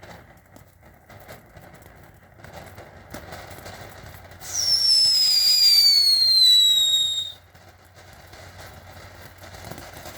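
Opening Flower and Happy Bird firework fountain burning with a low crackling spray. About four and a half seconds in, a loud whistle starts, falls steadily in pitch for about three seconds, then cuts off suddenly.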